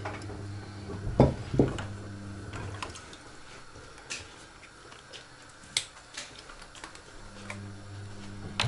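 Kitchen utensils being handled: a spoon scraping and knocking a glass bowl, with two soft knocks about a second in, then scattered light clicks as a cream carton is picked up. A low steady hum runs underneath and drops out for a few seconds in the middle.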